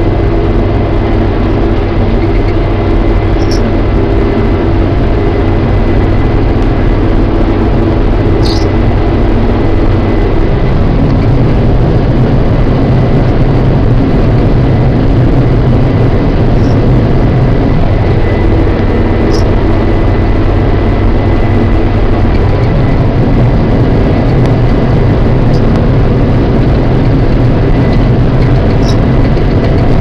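New Holland TR70 combine running under load at harvest: a steady engine and threshing drone with a thin high whine. The low drone shifts about a third of the way in and again later.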